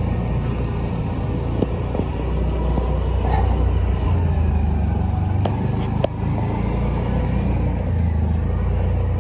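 Motorcycle engine running at low speed, a steady low rumble, with two sharp clicks about five and a half and six seconds in.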